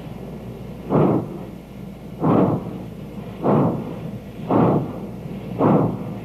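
Union Pacific Big Boy 4-8-8-4 articulated steam locomotive starting a heavy freight train. The stack gives five heavy exhaust chuffs about a second apart, coming slightly quicker as it gathers speed.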